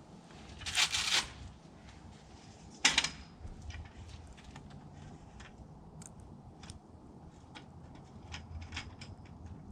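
Metal awning support legs being handled and set: a scraping slide about a second in, a sharp clack just before three seconds, then a run of light clicks and taps.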